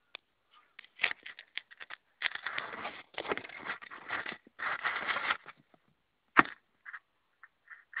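Rustling, crackling handling noise on the camera's microphone in long stretches while the camera moves. A single sharp knock comes about six and a half seconds in. A few short calls near the end are the start of Torresian crows cawing.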